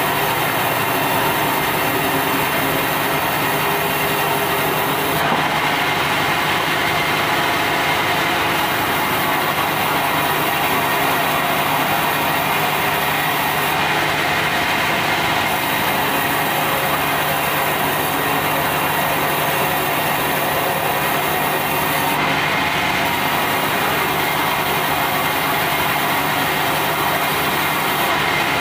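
Sawmill band saw running steadily, its blade ripping through red meranti timber.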